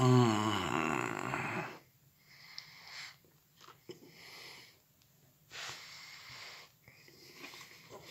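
A man breathing hard through his nose with a whole peeled mandarin filling his mouth. It opens with a loud, muffled groan that falls in pitch, followed by several noisy, wheezy breaths about a second long each.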